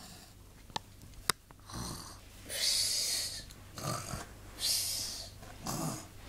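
Snoring imitated by a person's voice: about five breathy snores and snorts, roughly one a second, starting about two seconds in. Two light clicks come before them.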